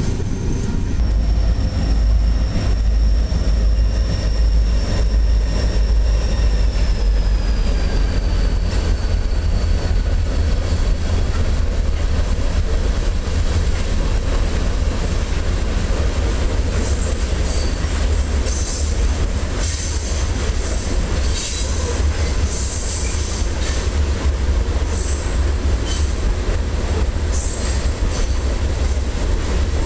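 Freight train cars rolling past with a steady low rumble. A high wheel squeal holds for several seconds and slides down in pitch, and from about halfway on, short high squeals and scrapes from the wheels come again and again.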